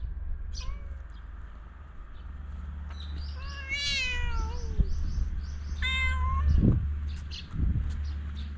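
A domestic cat meowing three times: a brief meow, then a long drawn-out one about three and a half seconds in that sinks in pitch at the end, then a shorter one about six seconds in.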